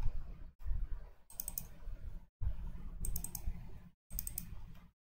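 Computer mouse button clicks: about four short groups of quick clicks, such as double-clicks opening folders, over a low background rumble.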